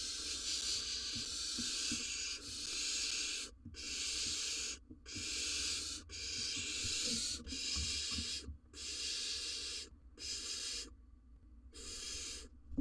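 Barn owl nestling begging with a series of long, raspy hissing calls, each about a second long with short breaks between them, thinning out near the end. Soft knocks and scuffles from the owls moving on the nest-box floor can be heard under the calls.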